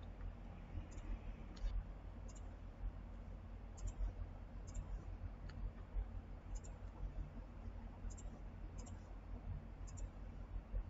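Computer mouse clicking repeatedly, a short sharp click every second or less at an uneven pace, as list items and wall objects are selected, over a low steady hum.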